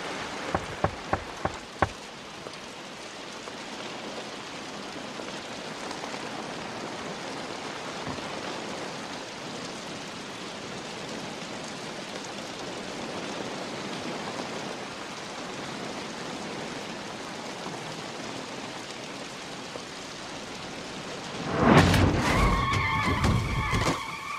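Heavy rain falling steadily, with a few sharp taps in the first two seconds. About 22 seconds in, a sudden loud rush of noise with a wavering high-pitched tone breaks over the rain.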